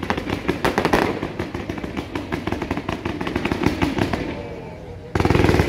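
Mascletà fireworks: long strings of firecrackers going off in rapid, dense bursts of bangs and crackle. About five seconds in, a sudden louder and faster volley starts, like machine-gun fire.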